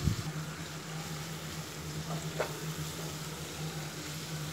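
Sliced onions and green chillies sizzling softly in oil and ghee in a nonstick wok as the onions fry toward brown, over a steady low hum.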